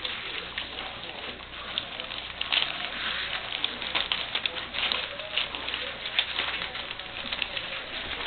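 English Springer Spaniel puppies eating together: a busy, irregular patter of quick wet clicks and smacks from many mouths chewing and lapping at once.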